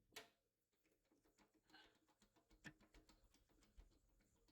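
Near silence with a few faint, scattered clicks and taps from a case fan being screwed into a PC case.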